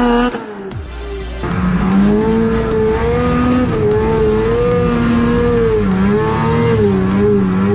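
Snowmobile engine running under throttle, its pitch rising and falling smoothly as the throttle is worked. It drops off briefly near the start and picks back up about a second and a half in.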